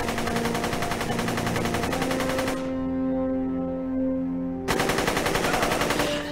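Machine gun firing rapid automatic bursts: one burst cuts off about two and a half seconds in, then a second burst starts about four and a half seconds in and stops near the end. Held music notes run underneath.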